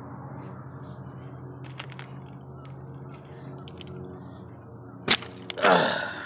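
A steady low hum with faint scattered ticks, then a sharp knock about five seconds in and a man's short exclamation falling in pitch.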